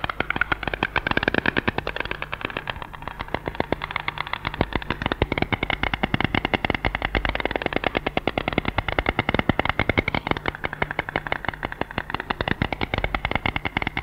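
White stork clattering its bill: a long run of rapid clicks that swells and falls in loudness. Bill-clattering is the stork's main call, since adult white storks are nearly voiceless.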